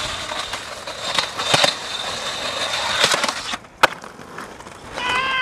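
Skateboard wheels rolling and scraping along a ledge and concrete pavement with a steady hiss, broken by a few clicks. A single sharp clack of the board hitting the ground comes a little under four seconds in.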